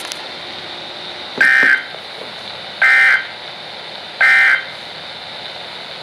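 Three short, identical warbling data bursts of the Emergency Alert System end-of-message code, evenly spaced about a second apart, from a RadioShack NOAA Weather Radio receiver's speaker over a faint steady hiss. They mark the close of the Special Marine Warning broadcast.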